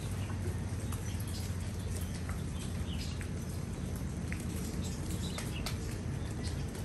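Rain falling on leafy ground plants: a steady hiss with many scattered close drops ticking on the leaves, over a steady low rumble.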